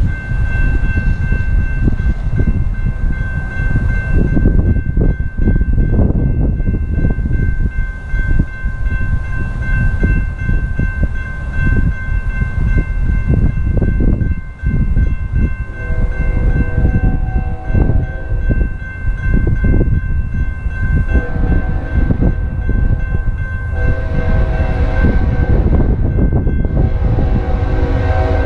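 Horn of an approaching BNSF ES44C4 freight locomotive sounding several long blasts in the second half, over heavy wind noise on the microphone. A steady high-pitched tone rings throughout.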